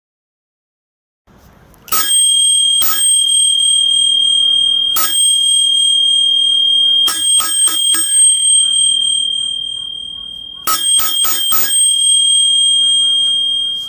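Steel sword blades clashing in a staged sword-fight sound effect. There are three single clangs, then two quick flurries of four or five strikes each, and a high metallic ring hangs on after every hit.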